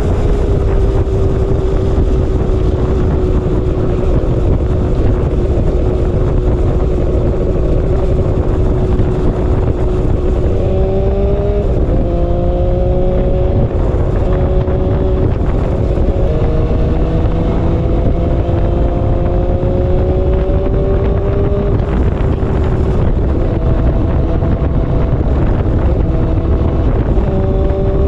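Motorcycle engine running at steady cruising speed under heavy wind rumble on the microphone. Its note changes pitch several times in the second half as the rider varies speed.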